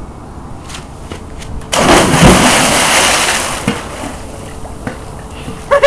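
A person jumping into a swimming pool: a sudden loud splash about two seconds in, then water rushing and settling as it fades over about two seconds. A short, loud sound follows near the end.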